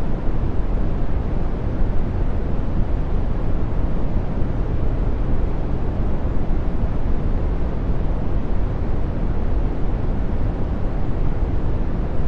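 Steady brown noise: a deep, soft random rush, strongest in the bass and fading off toward the treble, with no tones or changes.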